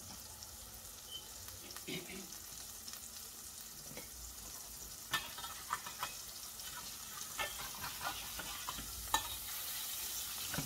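Plant-based burger patties sizzling steadily in a stainless steel skillet. From about halfway through, a metal spatula clicks and scrapes against the pan as the patties are turned.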